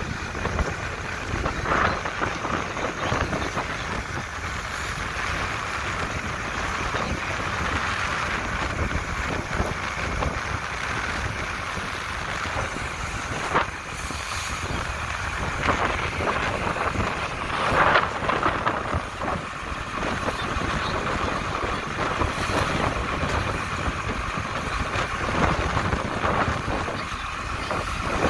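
Steady wind buffeting the microphone over water rushing along the hull of a sailboat under way, with a couple of brief knocks about halfway through and near the two-thirds mark.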